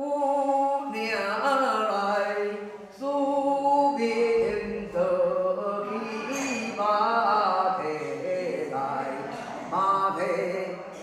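A solo voice sings a flowing, wavering chant in long held phrases, sliding between notes with vibrato. This is the ritual singing of a spirit medium at a Mother-goddess altar.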